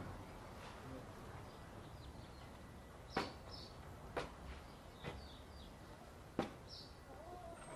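Four sharp knocks about a second apart, the last one loudest, over a soft outdoor background, with small birds chirping briefly between them.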